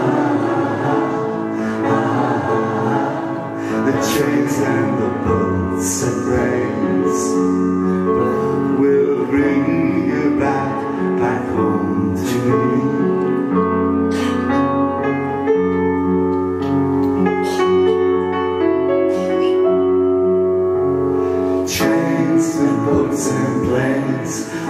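Live piano and guitar playing a slow pop ballad, with voices singing.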